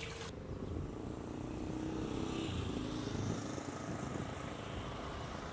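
A vehicle running: a steady low rumble with a faint engine hum.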